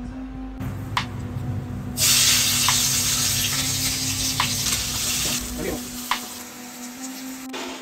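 Food frying in hot oil in a cooking pan: the sizzle jumps up loudly about two seconds in and eases off a few seconds later, with sharp clicks of a utensil against the pan about every second and a half as it is stirred.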